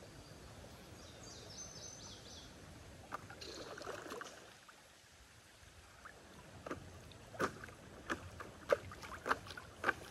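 Paddle-board paddle stroking through shallow creek water: a swish of water about three seconds in, then a quick run of sharp little splashes and drips in the last few seconds. Faint high chirps sound near the start.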